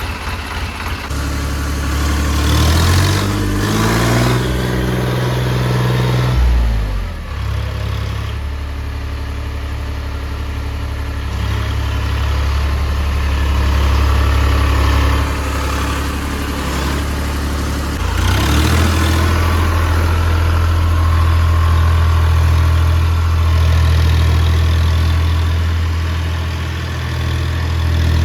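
Heavy diesel engine running. It revs up a couple of seconds in, drops back to a steady run about seven seconds in, and revs up again just after eighteen seconds, holding the higher speed to the end.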